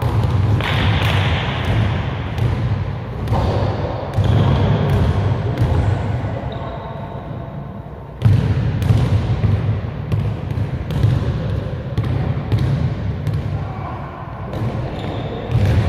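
A basketball being dribbled on a gym floor: a run of sharp bounces about two a second, pausing briefly and then going on, over a steady low rumble.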